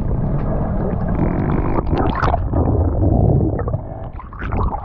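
Muffled underwater rumble and water noise picked up by a diver's action camera, with scattered clicks and knocks. Near the end it eases off as the camera comes up out of the water.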